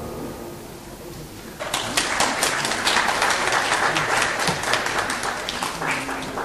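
After a short quiet, an audience breaks into applause about a second and a half in, with dense clapping that holds steady to the end of the song.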